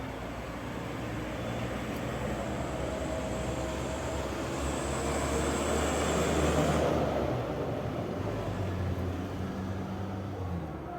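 A motor vehicle passing: a steady engine-and-road noise that swells to its loudest about six to seven seconds in, with a thin high whine at the peak, then fades away.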